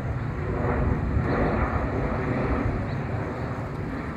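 Boeing 737-700 jet on approach passing overhead, the steady rumble of its CFM56-7B turbofan engines fading slightly as it moves away.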